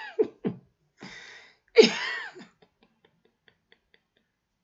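A man laughing: a few short, falling laughs at the start, a breathy exhale, then one louder, high-pitched laugh about two seconds in, followed by a few faint ticks.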